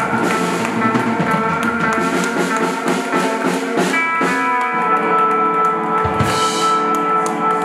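Live rock band playing with electric guitars and a drum kit, no singing. Past halfway the guitars settle into held notes, and about six seconds in a drum hit lands with a cymbal crash.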